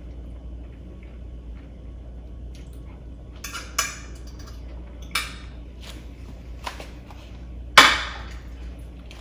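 A fork clinks and scrapes on a plate a few times. Near the end the plate is set down on a granite countertop with a sharp clack, the loudest sound.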